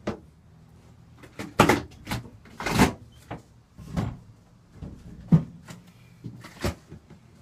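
A series of about seven irregular knocks and thuds over several seconds, some much louder than others.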